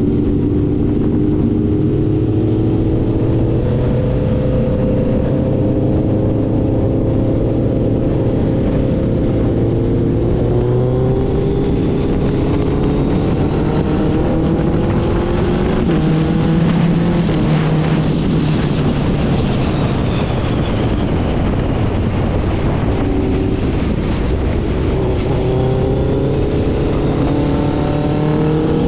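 Suzuki Hayabusa Gen3's 1340 cc inline-four running through an Ixil aftermarket exhaust on the move. The engine pitch climbs slowly several times and drops back with throttle and gear changes.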